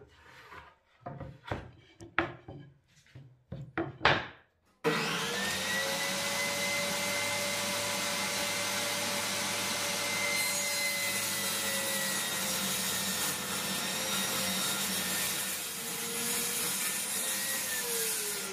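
Pieces of wood knocked and set down on a table saw top. About five seconds in, the table saw starts suddenly and runs with a steady whine while a wooden strip is fed through the blade. Near the end the motor is switched off and its pitch falls as the blade spins down.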